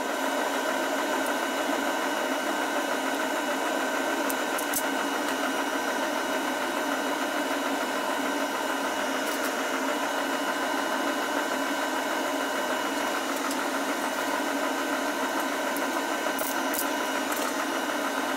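Space heater running with a steady whirring noise and a faint fixed hum. A few faint clicks come through now and then.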